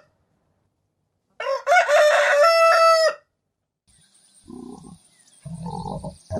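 A rooster crows once, a long cock-a-doodle-doo ending on a held note. Near the end a different animal recording begins: two low calls over a faint, steady high hiss.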